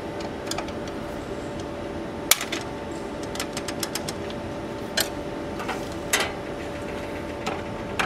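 Sharp clicks and knocks of metal parts being adjusted by hand on a benchtop bottle labelling machine, the loudest a little over two seconds in, with a quick run of ticks about a second later, over a steady hum.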